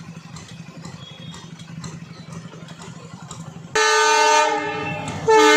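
A low, steady engine hum from vehicles waiting at the closed crossing. About four seconds in, the approaching diesel locomotive sounds its horn loudly: a sudden multi-tone blast that eases off, then a second, louder blast near the end.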